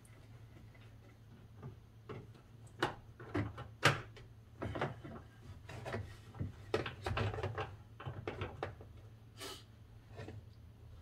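Irregular clicks, knocks and rattles of a plastic window guide being worked into place by hand inside a Jeep Grand Cherokee rear door, with a steady low hum underneath.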